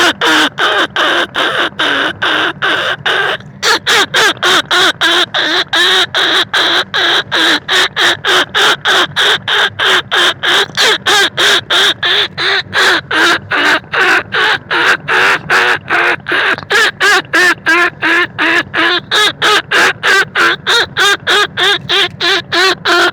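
Rat-calling lure sound for rice-field rats and lesser bandicoot rats: a fast, unbroken run of short wavering squeaky calls, about three a second, with one brief gap about three and a half seconds in.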